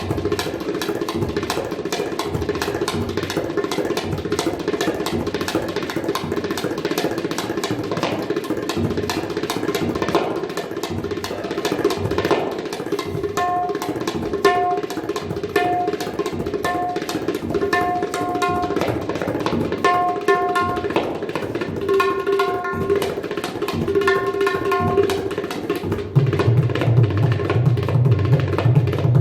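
Tabla played fast and without a break in a train imitation: dense rapid strokes, with ringing high treble-drum strokes about once a second from about halfway. Deep, heavy bass-drum strokes join near the end.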